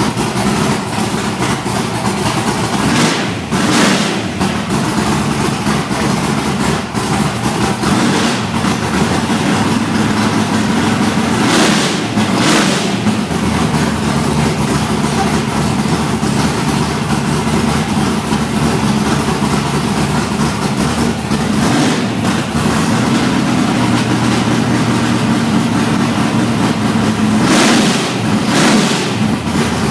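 Built 351 V8 with Cleveland heads in a 1971 Mach 1 Mustang, running loud and steady at a lumpy idle. Three pairs of short bursts of noise come about 3, 12 and 28 seconds in.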